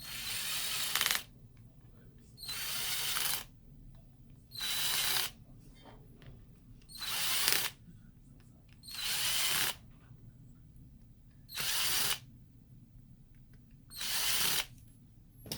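Small electric screwdriver or power driver running in seven short bursts of about a second each, two seconds apart, each one building in loudness before it stops.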